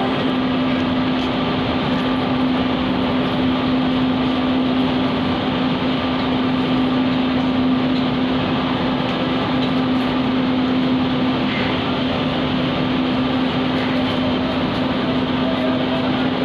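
Passenger train coaches rolling past along the platform as the train pulls out: a steady rumble with a constant low hum throughout.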